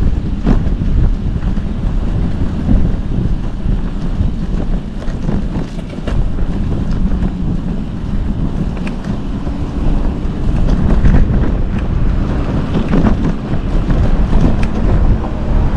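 Wind buffeting the microphone of a camera on a moving bicycle: a loud, steady low rumble, with a few light knocks.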